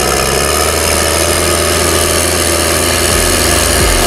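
New Holland T7070 tractor's 6.7-litre NEF six-cylinder diesel, overboosted and running through an open exhaust pipe, holding steady engine speed.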